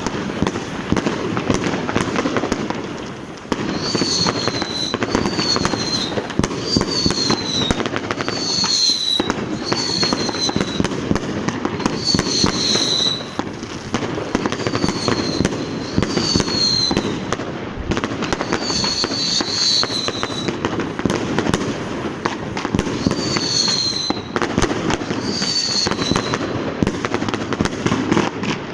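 Street fireworks and firecrackers: continuous dense crackling and popping with louder bangs. Over it, a high whistle that falls slightly in pitch repeats about a dozen times, starting about four seconds in.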